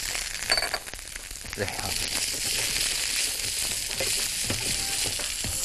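Cubes of par-boiled beef sizzling as they sear in a hot frying pan with a little oil: a steady frying hiss.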